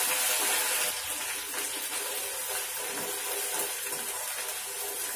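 Ground coconut-and-onion masala sizzling in hot oil and ghee in an aluminium kadhai while a spoon stirs it, a little louder in the first second.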